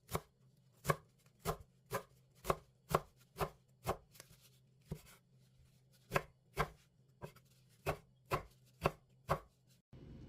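Knife chopping food on a cutting board in steady strokes, about two a second, with a short pause partway through.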